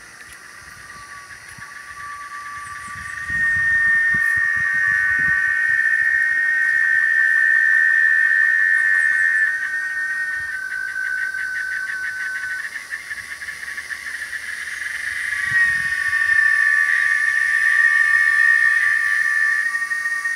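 Cicada song: a steady, high, ringing tone that grows loud about three seconds in. Around the middle it falters into a pulsing rattle, then swells back to full strength near the two-thirds mark.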